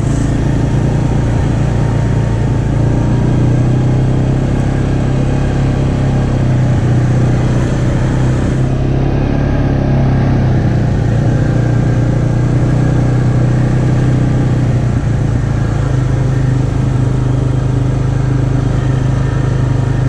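ATV engine running steadily while riding along a dirt trail, with an even low drone and no change in revs.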